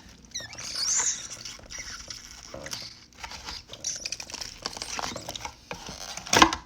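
Stiff, tough slime being worked and pressed into a plastic skillet mold by hand, giving irregular sticky crackling and squishing with small clicks. There is a loud thump near the end.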